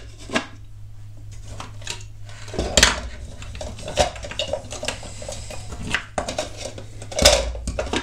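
Hard plastic model parts handled and fitted together: a grey roller drum going into a yellow plastic compactor frame, giving a string of clicks and light knocks. Two louder knocks come about three seconds in and near the end, over a steady low hum.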